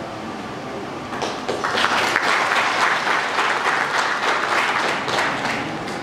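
Concert audience applauding: scattered claps begin about a second in and swell within half a second into full applause.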